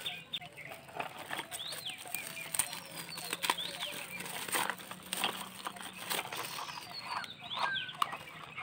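Gift wrapping paper crinkling and tearing in irregular crackles as small presents are unwrapped by hand, with a few birds calling in the background.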